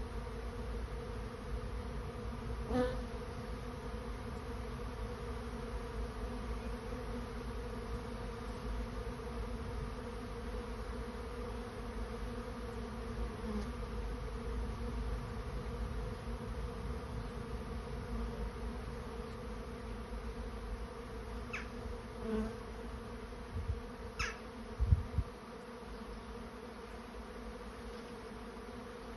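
Honey bee swarm in flight: a dense, steady buzzing hum from thousands of bees. Near the end a few bees pass close and there are a couple of brief low bumps.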